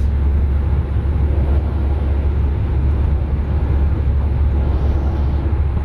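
Cabin noise of a camper van cruising on a motorway: a steady low rumble of engine and tyres on the road.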